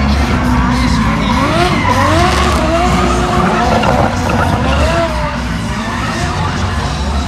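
Drift car sliding, its engine revving up again and again over the screech of the tyres.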